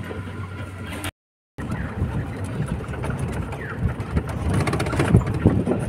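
Safari vehicle driving along a bumpy dirt track: engine running under a steady rumble, with irregular low jolts from the rough track and wind on the microphone. The sound drops out completely for about half a second about a second in.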